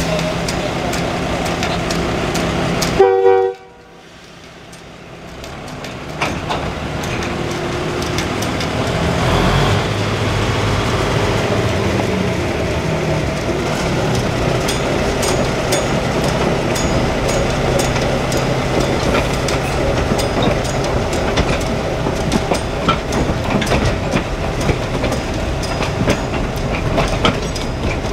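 ALCO RS-1 diesel locomotive and freight cars running, with a steady engine drone at first. About three seconds in, a brief loud tone is followed by a sudden drop. The train sound then builds back up over several seconds to a steady rumble with wheels clicking over the rail joints.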